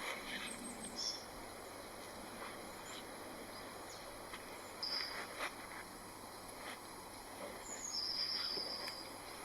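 Woodland ambience with birds calling: short high chirps a few times and a longer high whistled note near the end, over a steady outdoor hiss. A few faint clicks and knocks come through as well.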